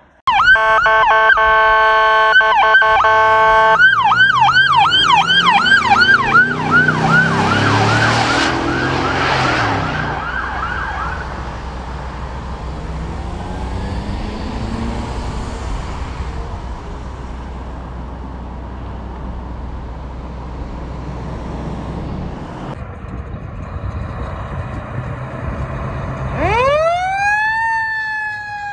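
Emergency vehicle sirens. A steady horn blast of a few seconds gives way to a siren on a fast yelp, followed by a quieter stretch of engine and traffic rumble. Near the end a siren sweeps up quickly and falls away slowly in a wail as a fire ladder truck pulls out.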